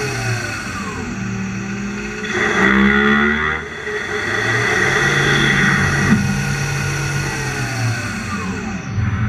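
CNC turning-centre lathe at work, its spindle and axis drives whining with pitches that sweep up and down as speeds change.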